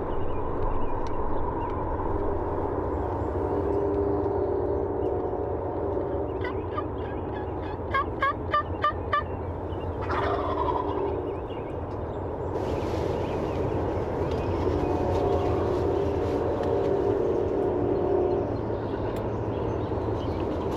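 Wild turkeys gobbling repeatedly, with a quick series of about six higher, evenly spaced calls around the middle. A steady hiss joins in from about two-thirds of the way through.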